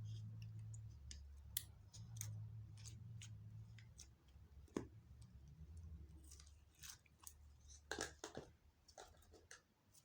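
Slime being mixed and squeezed by hand, giving faint, irregular sticky clicks and small pops, with a cluster of them near the end. A low hum runs under the first part and fades away.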